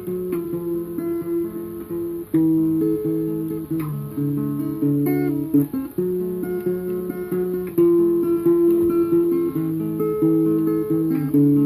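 Acoustic guitar playing an instrumental passage: picked and strummed chords, notes ringing on and changing every half second or so.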